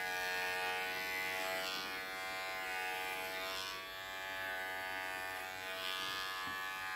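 CODOS electric pet clipper with a 13 mm ceramic blade running with a steady buzz while it shears through a dog's long coat. The hiss of cutting fur swells about every two seconds as the blade is pushed through.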